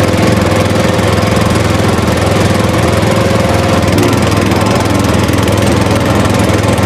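Tractor engine running steadily, a fast, even chugging with no change in speed.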